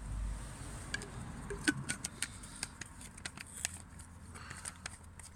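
Scattered light metallic clicks and clinks from handling a small metal pot or billy can as water is put in and it is set over the fuel tablets, after a brief low bump at the start.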